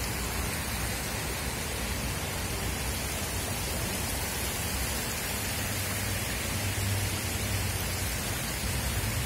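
Steady rush of water flowing down a stepped cascade water feature.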